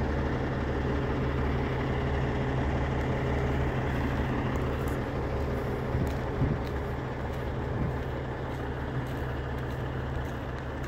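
Heavy diesel truck engine, the Peterbilt's Cummins ISX15, idling steadily with an even low hum. There is a small knock about six seconds in.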